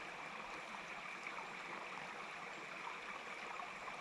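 Small mountain brook running steadily: an even, unbroken rush of flowing water.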